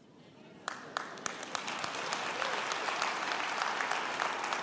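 Audience applause: a few separate claps about a second in that swell into full, steady clapping from the whole crowd.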